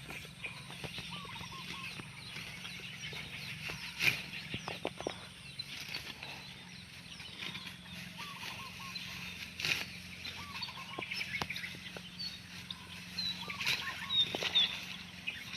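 Chickens clucking in short curled calls every few seconds, with many high chirps from small birds and scattered light clicks and rustles.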